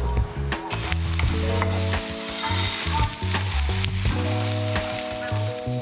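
Chopped red onion sizzling in a frying pan on a gas hob, with dry coquillettes pasta poured into the pan and clattering against it. Background music with sustained notes plays throughout.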